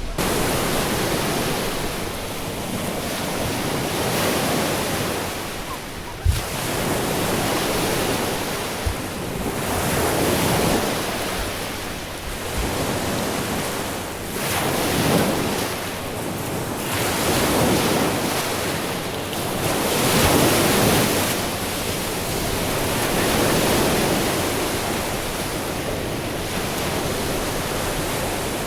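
Lake Huron waves breaking and washing onto the beach, the surf swelling and fading every few seconds. Wind buffets the microphone with a few brief low thumps.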